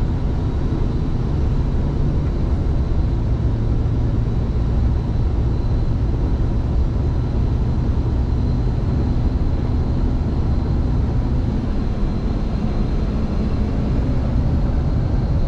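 Scania truck cruising at highway speed, heard from inside the cab: a steady low engine drone with road and tyre noise, and a faint steady high whine over it.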